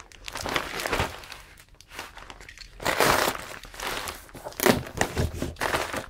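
Plastic-wrapped mailer crinkling and rustling in irregular bursts as it is handled and opened.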